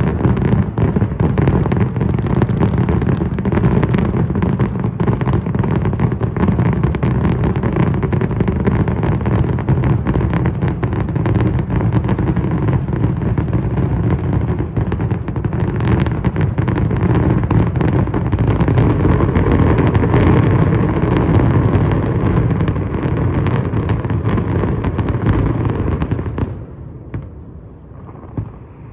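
Fireworks display at its height: a dense, continuous barrage of overlapping bangs and crackling. About 26 seconds in the barrage drops off sharply, leaving a few scattered pops.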